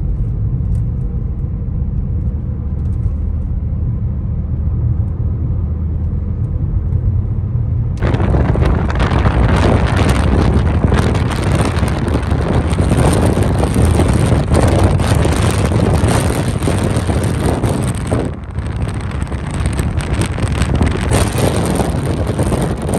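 Car on the move: a steady low road and engine rumble, and about eight seconds in a sudden loud rushing noise takes over.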